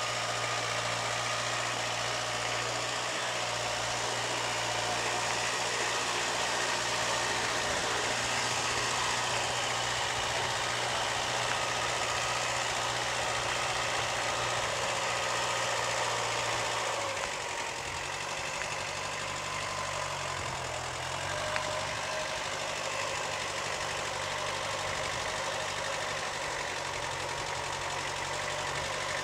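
Tractor engine running steadily while pulling a trailer loaded with bricks; about 17 seconds in its pitch shifts and it gets slightly quieter, then runs on evenly.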